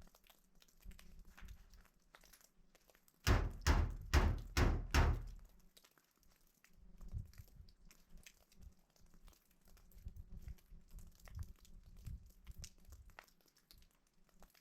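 A quick run of about five heavy thumps a few seconds in, followed by scattered faint crunching and clicking.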